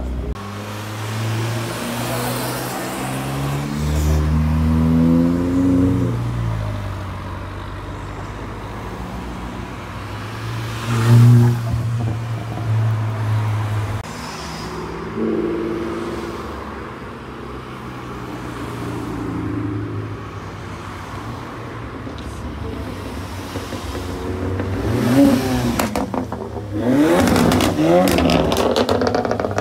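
Tuned hatchback cars accelerating hard away one after another, engines revving up through the gears. There is a single loud exhaust bang about eleven seconds in. Near the end comes a high rev broken by a rapid string of exhaust pops and crackles.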